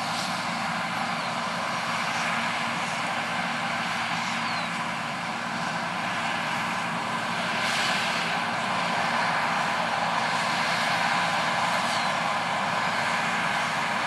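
John Deere 9770 STS combine running steadily while harvesting wheat: a continuous engine and threshing-machinery drone, a little louder in the second half.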